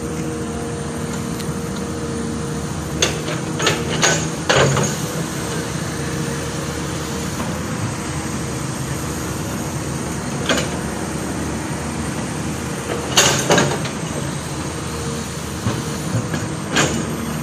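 Steady engine hum of road-works machinery, broken by several sharp clanks and knocks: a cluster three to five seconds in, one around the middle, and a few more near the end.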